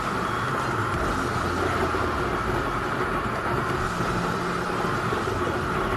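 Motorcycle cruising at highway speed, heard from the rider's own bike: a steady rush of wind and road noise with the engine running underneath.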